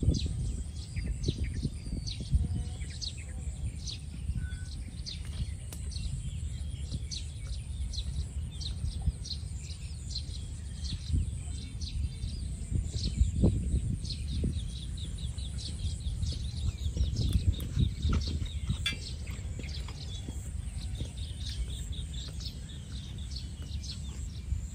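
Birds chirping in quick, short, repeated notes over a low, uneven rumble.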